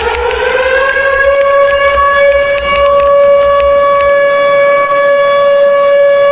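Civil-defence siren sounding the air-raid alarm signal. It winds up in pitch over the first second or so, then holds one steady, loud wail. A crackle sounds beneath it during the first few seconds.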